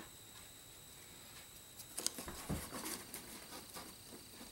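Light handling noises: small clicks and scrapes bunched between about two and three seconds in, with one soft thump among them, as hands take up a thin wooden stick and set it against a rocket fin.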